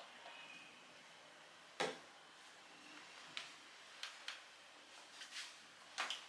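A sharp knock about two seconds in, then a scatter of light clicks and taps as a person shifts and gets up from a chair on a wooden floor.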